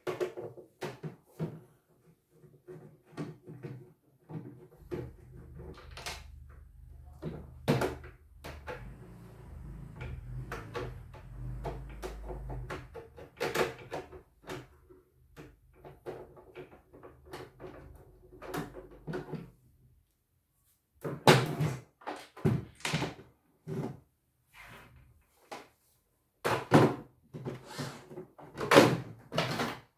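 Plastic touchscreen housing being handled and opened with a screwdriver: irregular clicks, knocks and clunks of hard plastic, with a low hum under the middle stretch and a run of louder knocks near the end.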